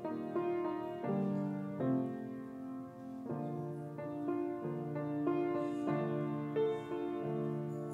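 Grand piano played solo: sustained chords over bass notes, with a new chord or melody note struck about once a second.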